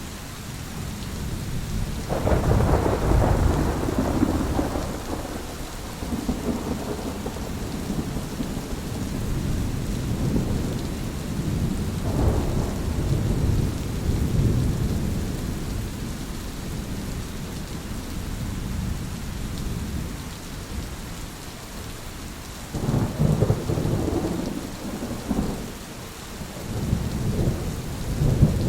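Thunderstorm: steady rain with thunder rolling in deep, swelling rumbles several times, the loudest about two seconds in, more around twelve seconds and again near the end.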